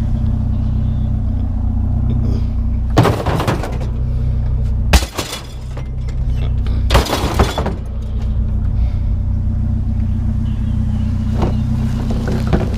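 Vehicle engine idling steadily, with clattering crashes of scrap items being handled and loaded: one about three seconds in, a sharp bang about five seconds in, and another crash about seven seconds in.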